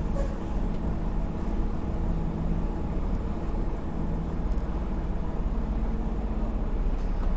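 Semi truck's diesel engine running steadily, a constant low hum.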